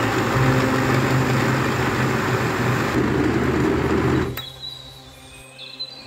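Countertop jug blender running at full speed, pureeing chopped onions: a steady motor whir with churning. It cuts off abruptly about four seconds in, leaving a much fainter background.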